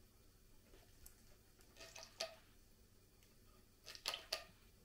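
Faint metallic clicks of hand tools on the rocker arms of a Volvo D67C diesel cylinder head while the valve clearances are being adjusted: a few about two seconds in and a few more near the end.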